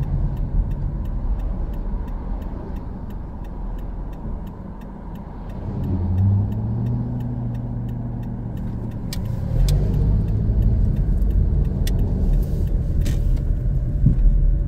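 Car driving on a paved road, heard from inside the cabin: steady engine and tyre rumble. The engine note dips and then rises again about six seconds in.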